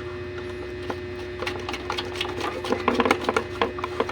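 Speaker wire being fitted to the terminal on the back of a loudspeaker: a run of small clicks and rattles starting about a second and a half in, over a steady hum.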